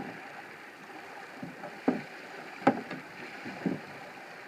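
Knocks and thumps on a tandem canoe's hull and gunwales as a person moves about inside it, switching positions. There are two sharp knocks around the middle and a few softer ones.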